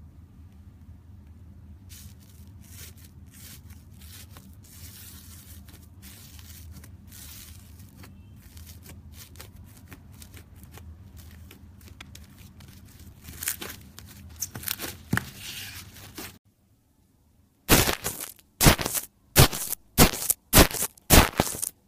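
Foamy slime in a plastic tub squished by fingers: a faint fizzy crackle of popping air bubbles over a low steady hum. After a short silence, a tool pressed into another foamy slime gives loud crackling strokes, about two a second.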